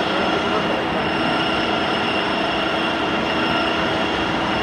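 Vertical turret lathe running while machining an aluminium workpiece: a steady mechanical noise with a high, steady whine through it.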